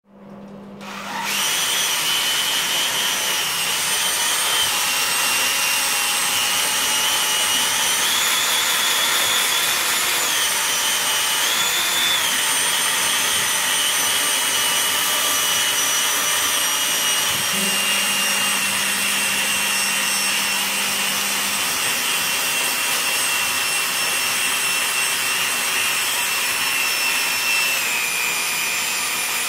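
Makita 18 V cordless drill spinning a wire brush against a perch, scraping off its scales: a steady high motor whine that starts about a second in and shifts a little in pitch now and then as the brush is pressed and eased.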